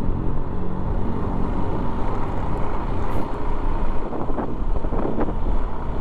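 Motorcycle engine running steadily on the move, with wind rushing over the microphone.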